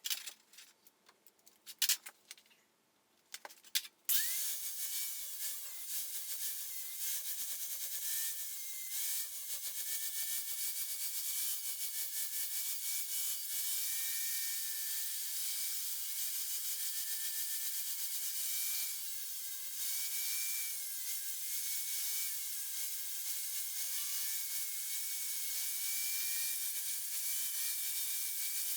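Angle grinder with a flap disc starting up about four seconds in, then grinding steadily into a metal pipe to cut out a coped notch: a wavering whine under a dense grinding hiss. A few light clicks and taps come before it starts.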